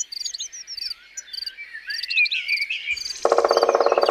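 Several birds chirping and whistling in short high notes, with a regular high ticking. About three seconds in, a frog starts a loud, fast rattling croak.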